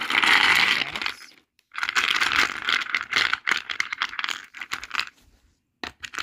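Plastic letter cubes rattling in a crinkling plastic bag, then clattering out onto a plastic grid tray in a run of many quick clicks as they are spread into its cells, with a few single clicks near the end as cubes are set in place.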